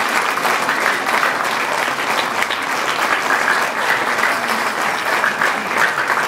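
Theatre audience applauding, a dense, steady clatter of many hands clapping.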